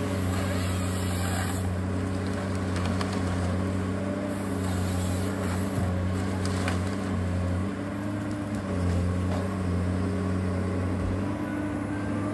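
Forestry harvester's diesel engine running steadily, its note stepping up and down several times, with a few faint clicks.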